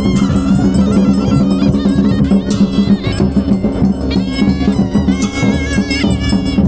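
Traditional folk music: a wind instrument playing a melody over a steady low drone, with percussion.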